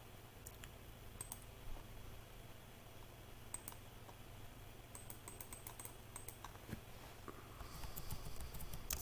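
Typing on a computer keyboard: faint, scattered key clicks that come in quicker runs about halfway through and again near the end, over a low steady hum.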